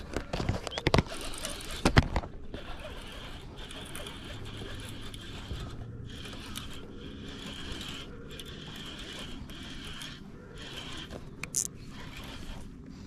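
Fishing reel being cranked against the pull of a hooked fish, its gears whirring and ratcheting steadily, with a few sharp clicks in the first two seconds.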